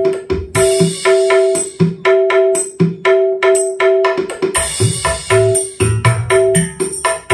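Dangdut song with a fast hand-drum beat and a repeated melodic line, played loud from a phone through a power amplifier and mixer into a 12-inch speaker and an 8-inch ACR Fabulous midrange. The amplifier is turned to full volume as a sound check.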